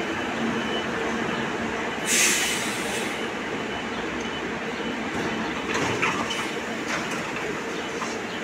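Athens Metro Line 1 electric train pulling out of the station and running past with a steady rolling rumble. A loud burst of air hiss comes about two seconds in, and several sharp clicks of wheels over rail joints follow around six to seven seconds in.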